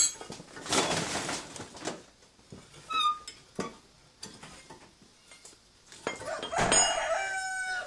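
Metal tools and brake parts clinking and clanking now and then as a front brake caliper is worked on, with a drawn-out, slightly falling tone near the end.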